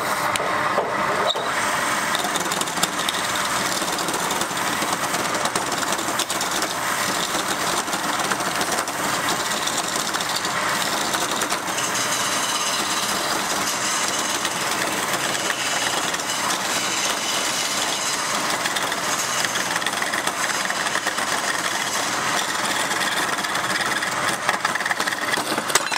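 Wood lathe running steadily, a wad of fibre pressed against the spinning wooden goblet to burnish it, giving a continuous rubbing hiss over the hum of the machine. Near the end, a flat scraper tool is held against the turning wood.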